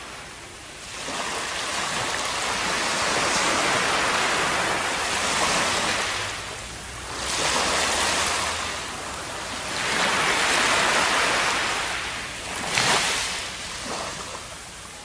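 Surf washing up a sandy beach: a rushing wash that swells and ebbs about four times as successive waves run in and draw back, with the last one fading near the end.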